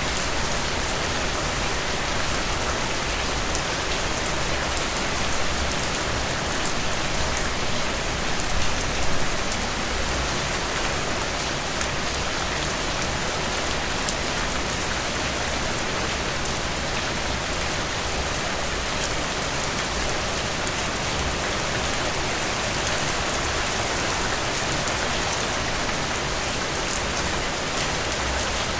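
Heavy rain falling steadily, a dense hiss with many distinct drops and drips striking a surface; a couple of brief louder swells about eight to nine seconds in.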